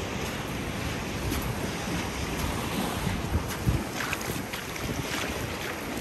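Sea waves washing onto a sandy beach, a steady surf noise, with wind buffeting the microphone.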